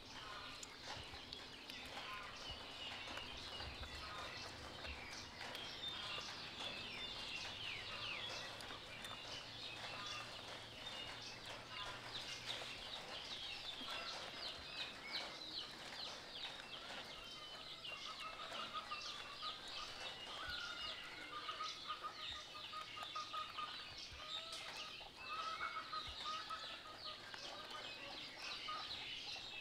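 Faint, continuous chirping and clucking of birds in the background, with a run of short, repeated calls of one pitch in the middle.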